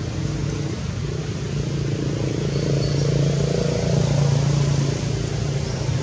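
Motor vehicle engine running with a steady low hum, growing louder around the middle and easing off near the end.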